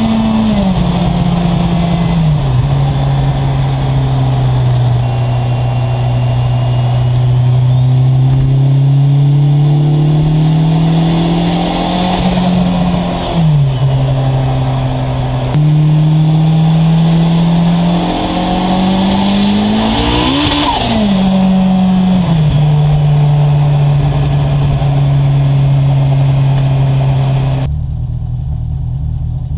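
Turbocharged four-cylinder engine of a VW Golf Mk2 pulling hard under boost, heard from inside the cabin: the engine note climbs steadily with the revs while a high turbo whistle rises with it, then both fall away sharply at a gear change or lift-off, twice. Near the end the sound cuts to a quieter, steady engine note.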